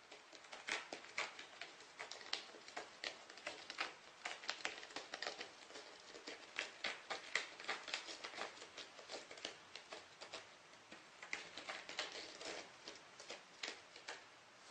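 A cat scrabbling and pawing at something, with irregular light clicks and scratchy taps, a few a second, which thin out towards the end.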